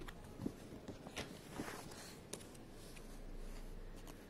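Faint rustling of paper with a few light clicks and taps as the pages of a colouring book and a small card are handled.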